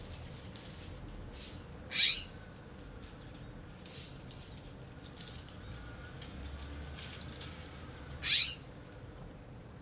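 Raccoon giving two short, harsh, hissing screeches about six seconds apart.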